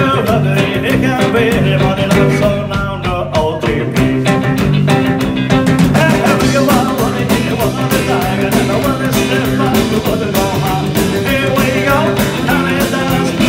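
A live rock and roll band playing: upright bass, drum kit and archtop guitars, with a man singing lead over a steady driving beat.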